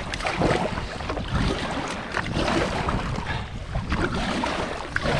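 Kayak paddle blades dipping and splashing through seawater in repeated strokes, with wind buffeting the microphone.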